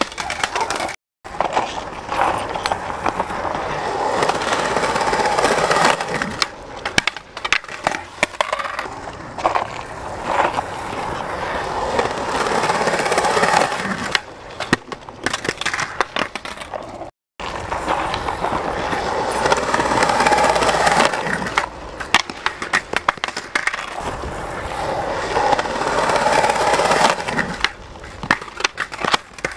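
Skateboard wheels rolling on concrete, the rolling noise swelling and fading as the skater rides up and down the bank, with sharp clacks of the board popping and landing. The sound cuts out completely twice for a moment.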